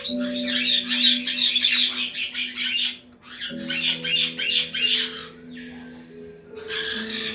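Caique parrots squawking in fast runs of harsh, repeated calls: a long run of about three seconds, a shorter one after a brief pause, and another short burst near the end. Background music with held notes plays underneath.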